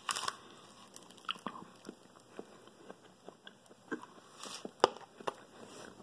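Close-up chewing of a mouthful of chicken and rice, with a metal fork clicking and scraping against a plastic bowl; one sharper click comes a little before the end.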